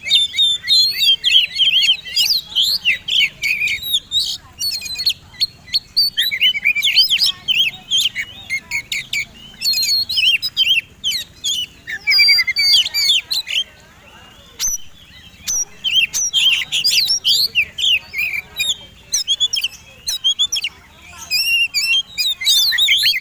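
Oriental magpie-robin (kacer) singing a loud, rapid, varied song of whistles, trills and sharp chattering notes, in full contest-style song, broken by a couple of short pauses in the second half.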